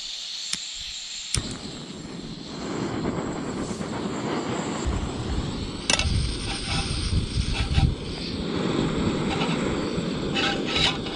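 Camping stove being lit: two sharp clicks, then the burner catches about a second and a half in and runs with a steady hiss that grows louder a couple of seconds later. A few sharp knocks sound over it around the middle.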